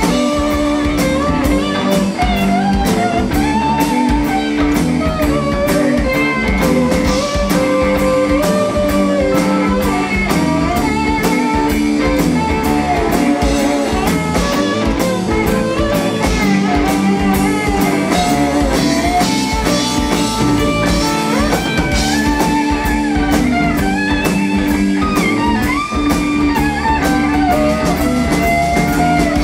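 Live blues-rock band playing an instrumental passage with no singing: electric guitars carry a wandering, bending lead line over electric bass and a drum kit.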